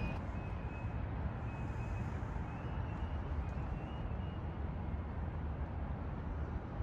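Steady low rumble of outdoor city background noise, the hum of distant traffic, with a few faint brief high tones.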